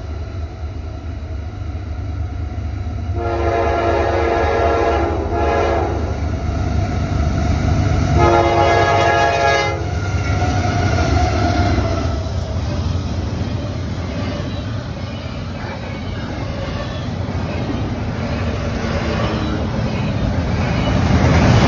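CSX double-stack intermodal freight train approaching and passing: its diesel locomotives sound a chime horn about three seconds in and again about eight seconds in over a steady engine rumble that grows louder. The locomotives then go by and the container well cars roll past with steady wheel and rail noise.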